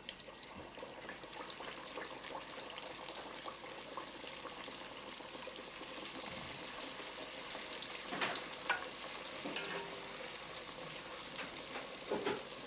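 Dough pastries stuffed with fish choka deep-frying in hot oil in a pot: a steady crackling sizzle that begins as the pastry goes into the oil and grows a little over the first couple of seconds.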